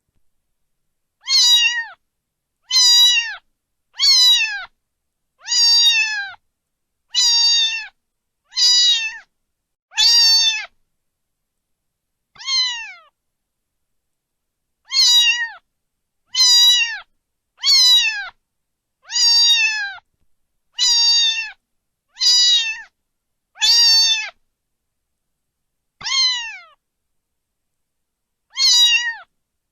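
Domestic cat meowing over and over: about seventeen short, high-pitched meows, each falling in pitch, roughly one every second and a half, with a few longer pauses.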